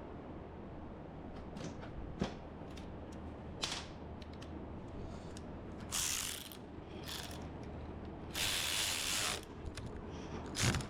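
Hand work on small steering-column parts: scattered clicks and knocks with a few short rasping bursts, like a ratchet or parts scraping, the longest lasting about a second in the second half.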